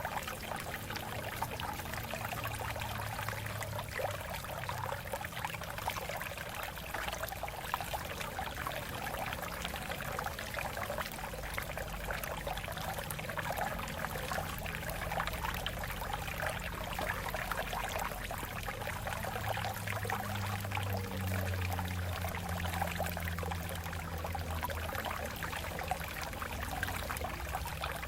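Stream water flowing and splashing over rocks, a steady babbling rush with no let-up.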